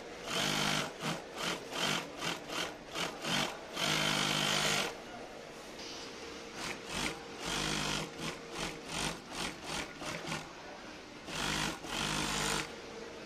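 Industrial single-needle lockstitch sewing machine stitching denim, run in quick short spurts with a longer run about four seconds in and another near the end. A steady hum carries on between the runs.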